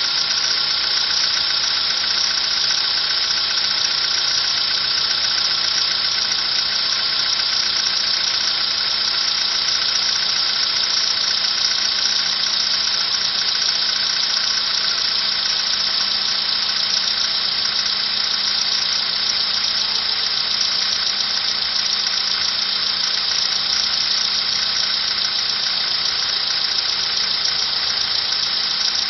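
Car engine idling steadily, with no knock, at a temperature of about −10 °C.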